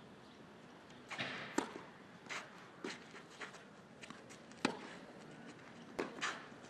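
Tennis ball struck by rackets and bouncing on the court: a few sharp hits spread a second or more apart, with softer scuffs between them.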